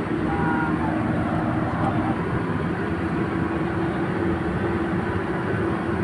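Steady engine and road noise of a moving tour coach heard inside the passenger cabin, with a constant low drone.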